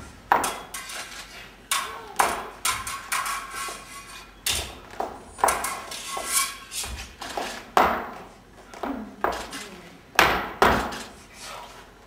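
Rapier and dagger fencing with flamenco footwork: sharp strikes at an irregular pace, about fifteen in all, some followed by a brief metallic ring.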